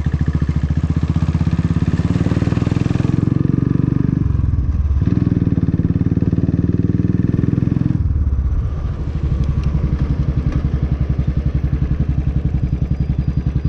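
Motorcycle engine running at low road speed with a rapid, even pulse. About four seconds in it drops briefly and picks up again, then eases to a lower, steadier note from about eight seconds in.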